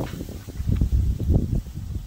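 Dogs close to the microphone: an uneven run of soft, low thumps and breaths.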